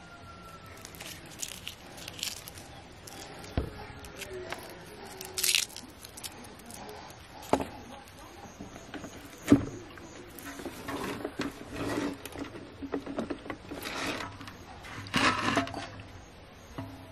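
Handling noises at a wooden table: scattered knocks, taps and scrapes as a garlic bulb is peeled and kitchen things are picked up and set down, with the sharpest knock about halfway through.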